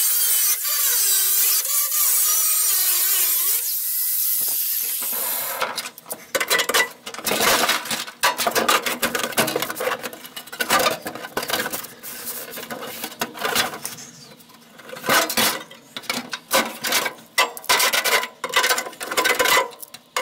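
Angle grinder grinding the steel cab floor, a steady whine that wavers in pitch under load and stops about five seconds in. Then irregular scraping and clanking of a sheet-steel floor patch panel as it is handled and fitted into place.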